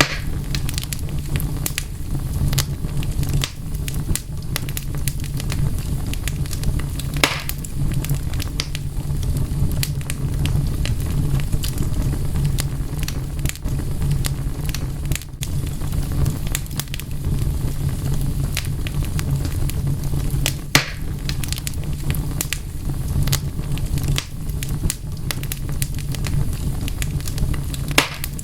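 Wood fire crackling: frequent sharp pops and snaps, a few louder than the rest, over a steady low rumble.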